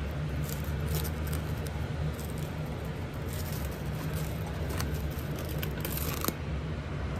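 Plastic cling film crinkling and crackling as it is peeled off a bowl, in several short spells with the last one near the end, over a steady low hum.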